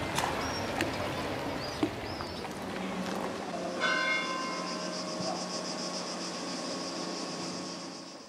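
Church bell struck about four seconds in, ringing on with a pulsing, wavering tone and slowly fading. Before the strike there is outdoor ambience with a few short high chirps.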